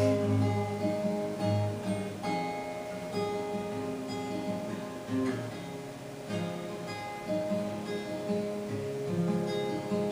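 Acoustic guitar strumming chords in an instrumental break of a worship song, with no voices.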